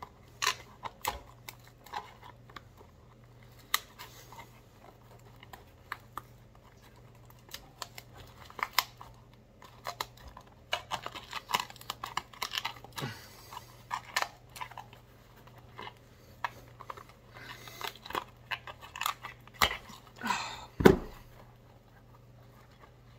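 A knife scraping and prying inside a leather boot, digging out old crumbly filler: irregular scratches, crackles and small clicks, with one sharper knock near the end.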